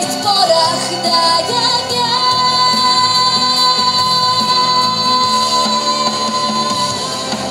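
A woman singing into a microphone over backing music, holding one long high note from about a second in until near the end.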